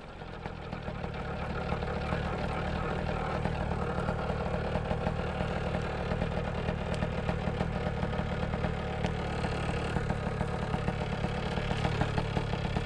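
Paramotor engine idling steadily, getting a little louder over the first two seconds and then holding even.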